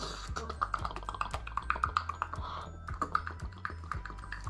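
Background music with a steady bass line and a quick clicking beat.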